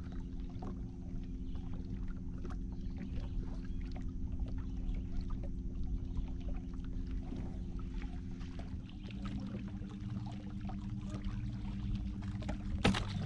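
Boat's outboard motor running steadily at trolling speed, its note changing about nine seconds in. A sharp knock near the end.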